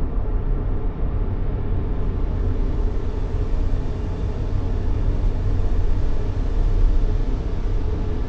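Steady, low, rumbling noise played as sleep sound for a baby, heavier in the bass than hiss.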